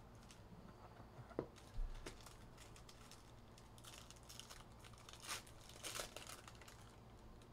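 Foil trading-card pack wrapper crinkling and tearing as it is handled and opened, in scattered faint bursts that are busiest in the second half, with a soft knock about two seconds in.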